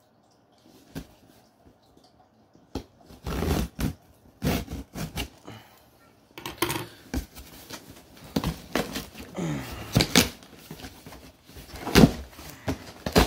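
A taped cardboard box being cut open with scissors and handled. From about three seconds in come knocks and thunks against the cardboard, with rustling and scraping; the sharpest knocks fall near the end.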